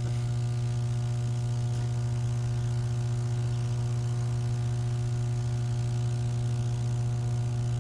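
Steady electrical hum of energized substation equipment: a deep, even drone with a stack of fainter higher tones above it.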